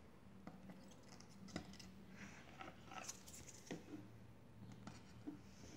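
Near silence: faint steady room hum with a few soft, small clicks.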